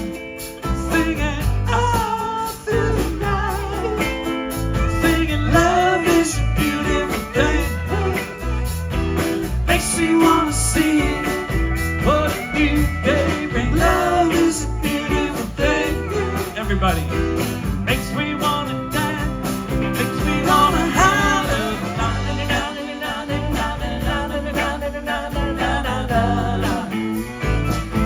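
Live band playing a blues-rock tune, with guitar and drums.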